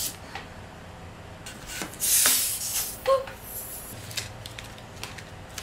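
A hand balloon pump pushing air into a twisting balloon: one hiss of air about two seconds in, lasting about half a second, with a short squeak about a second later.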